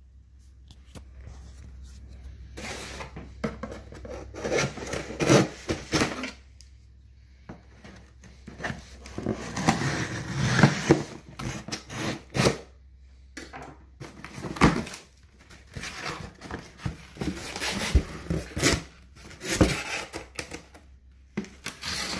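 A cardboard shipping box being opened and its contents unpacked by hand: irregular rustling and scraping of cardboard and packing, with scattered sharp knocks and short pauses.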